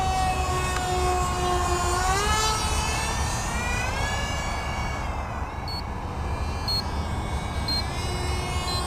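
Twin electric ducted fans of a BlitzRCWorks SR-71 Blackbird RC model jet whining in flight, the pitch rising about two seconds in and again about four seconds in, then fading a little before returning as a steady whine near the end. A steady low rumble runs underneath.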